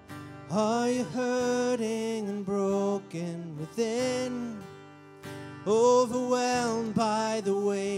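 Live worship band music: a singer sings a verse over acoustic guitar, bass guitar and drums, the voice coming in about half a second in.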